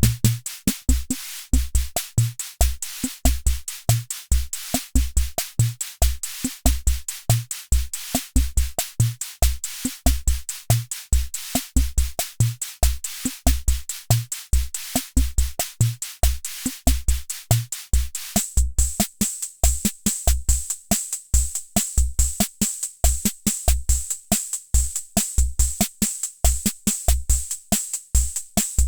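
Hammond Auto-Vari 64 analog rhythm machine playing a preset beat of deep bass-drum thumps and crisp high ticks. About two-thirds of the way through the pattern changes and a bright, hissing high sound joins the beat.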